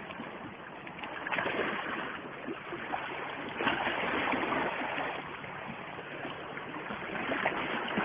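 Sea water washing against the rocks of a boulder shoreline: a steady noisy wash that swells and eases a few times.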